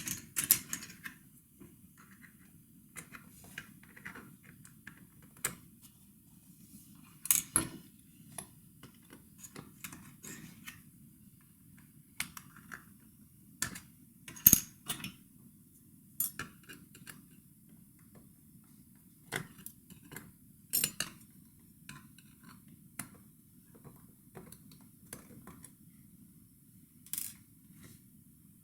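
Scattered sharp clicks and light metallic taps, a few seconds apart, of tools, screws and plastic parts being handled while an ASUS X555L laptop is taken apart.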